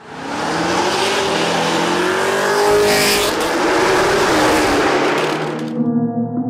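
Sixth-generation Chevrolet Camaro with an AWE axle-back exhaust running loud under hard acceleration, its engine note rising in pitch. The sound cuts off suddenly near the end.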